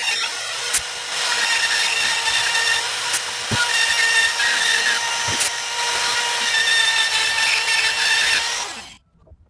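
Handheld rotary tool with a router base running and routing a bowtie-shaped inlay recess into a wooden frame corner, with a few sharp ticks as the bit cuts. The motor cuts out near the end.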